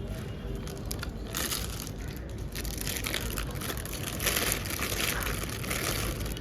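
Plastic packaging crinkling and rustling as it is handled, in uneven bouts that are loudest about a second and a half in and again from about four to five seconds in.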